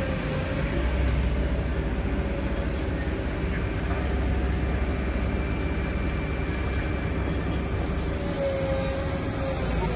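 Steady low rumble of heavy machinery, with a faint wavering whine that fades in the middle and returns near the end.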